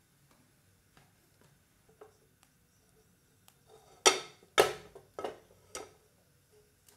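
Hot cooking oil spitting in a nonstick frying pan: two loud sudden crackles about half a second apart a little past halfway, then two smaller ones, each dying away quickly, after a few faint ticks.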